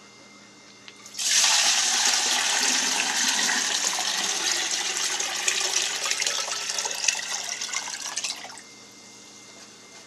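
Water being poured into a large glass jar, a steady splashing rush that starts about a second in and stops near the end.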